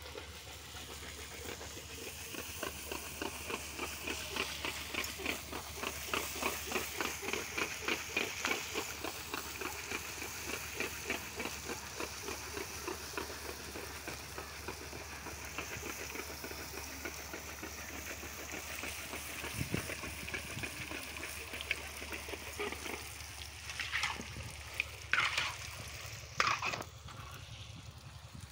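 Pani puri dough rounds deep-frying and puffing up in hot oil in an iron kadhai, a steady sizzle, while a slotted ladle stirs and turns them. A few louder sharp sounds come near the end.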